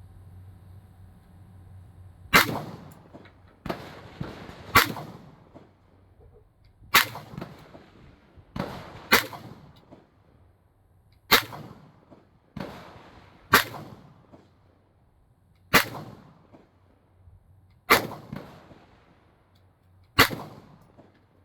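Gunshots fired one after another, nine loud shots roughly two seconds apart starting a couple of seconds in, each trailing off in echo, with a few fainter shots between them.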